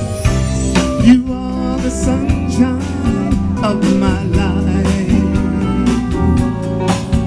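A live soul band playing, with a drum kit keeping a steady beat under bass, guitar and keyboards, and a voice singing over it.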